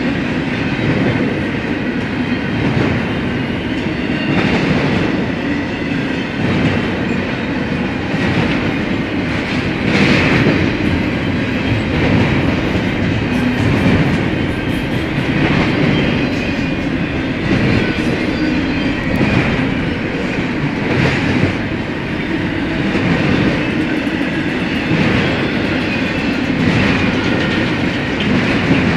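Freight train cars rolling past: a steady rumble of steel wheels on rail with recurring clacks as the wheel trucks cross rail joints.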